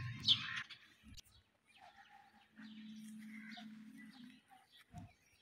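Faint garden ambience: a few birds chirping, and a low steady hum for about two seconds in the middle.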